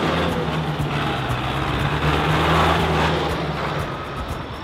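Diesel engine of a large farm tractor driving close by, a steady low drone that grows a little louder and then fades after about three seconds as it moves away.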